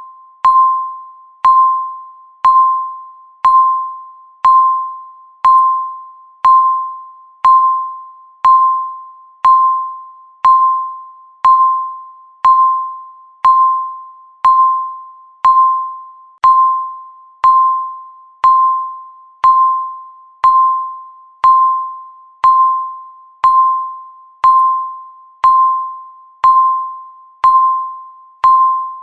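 Countdown timer beeping once a second, one beep for each second left: a single steady beep that starts sharply and fades away just as the next one sounds.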